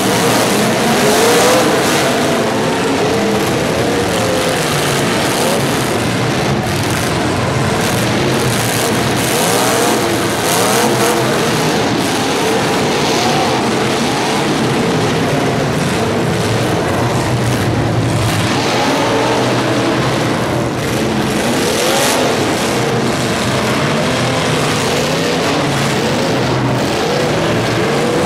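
Several race car engines revving, their pitches rising and falling over and across one another.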